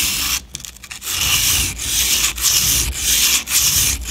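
Mora Bushcraft Forest knife's scandi bevel grinding back and forth on a coarse 240-grit Sigma Power Select II ceramic whetstone. The strokes come about two a second, after a short pause near the start.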